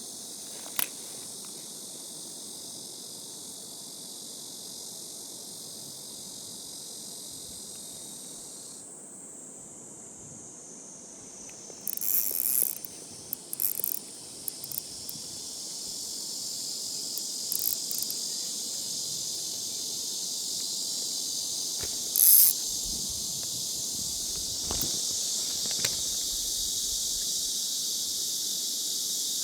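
Steady high-pitched insect chorus on a summer evening. Short bursts of noise and clicks break in twice, around twelve to fourteen seconds and again, loudest, about twenty-two seconds in.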